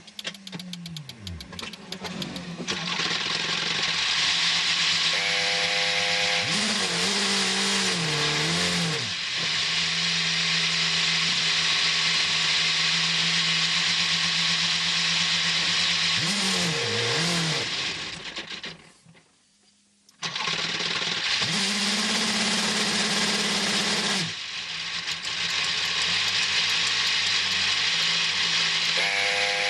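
The Oreca 07 LMP2 car's Gibson V8 heard from inside the cockpit, being restarted after a crash. It catches and runs with a steady hum under a loud hiss, the pitch swings briefly twice, and it cuts out for about a second about two-thirds through before running again.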